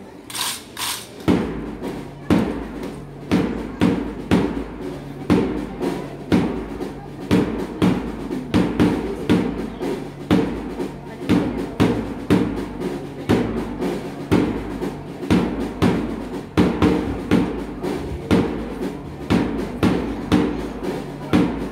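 Music with a steady drum beat, about two strikes a second, over sustained low tones; the beat starts about a second in.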